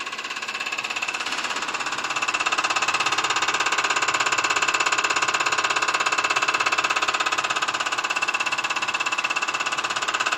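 CR966 common rail injector test bench running an injector test: the injector fires with a rapid, even mechanical ticking over the steady hum of the bench's pump. It grows louder about two seconds in.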